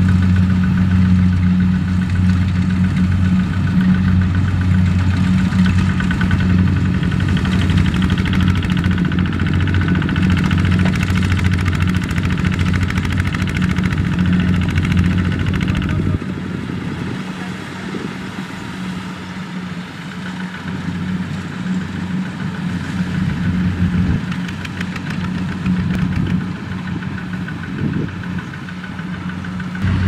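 The single-cylinder diesel engine of a two-wheel walking tractor running steadily. About halfway through, the sound drops suddenly to a quieter, thinner engine sound.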